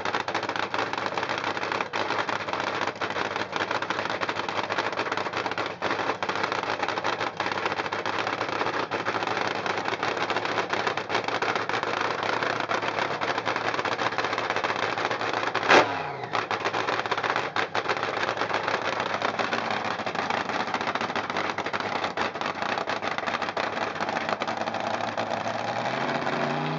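1977 Top Fuel dragster's supercharged V8 running steadily at a static warm-up, extremely loud. A single sharp crack stands out a little past the middle.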